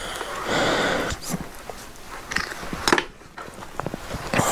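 Cloth rustling and handling noise as a grey cloth is pulled from inside a hard-shell motorcycle helmet, with scattered light clicks and knocks, the loudest about three seconds in.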